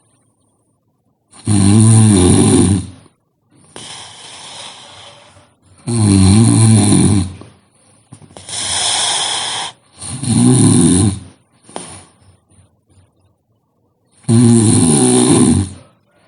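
A sleeping person snoring heavily: four loud snores about four seconds apart, each lasting about a second and a half, with quieter breathy exhales between them.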